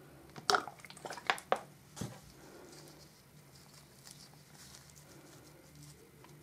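A few sharp plastic crackles and taps in the first two seconds, then soft rustling, as gloved hands press potting soil around a violet leaf cutting in a thin plastic cup.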